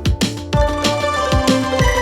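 Background music: electronic track with a steady beat and sustained synth tones.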